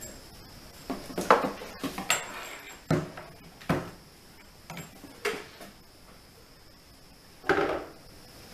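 Unpacking a metal detector: a cardboard box insert and plastic detector parts are lifted out and set down on a tabletop. Several irregular knocks and clicks, with a longer rustle near the end.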